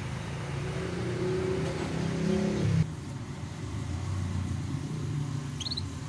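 Low rumble of a motor vehicle engine running, its pitch rising until it cuts off abruptly about halfway through, leaving a lower steady rumble. A canary gives a couple of short chirps near the end.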